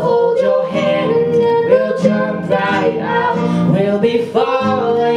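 Female voice singing a melodic line into a microphone, accompanied by acoustic guitar.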